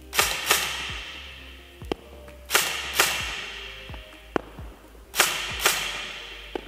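Evolution MK18 Mod 1 airsoft electric gun with a V2 gearbox firing semi-auto: three pairs of sharp shots about two and a half seconds apart, each ringing out with a long echo in a large empty hall. A fainter tick follows each pair.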